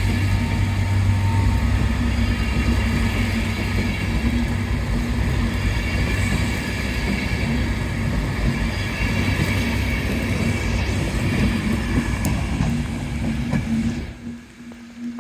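Diesel multiple-unit train running at the platform, a steady low engine drone over the hiss of heavy rain. The sound drops away abruptly near the end.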